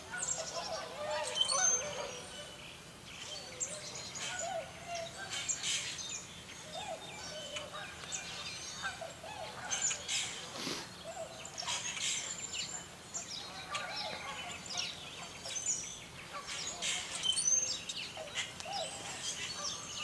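Flock of tundra swans and Canada geese calling, many short calls and honks overlapping without a break.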